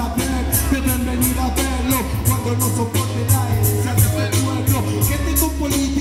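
Live hip hop through a PA: a beat with a heavy bass line and a steady drum pattern, with a rapper's vocals over it.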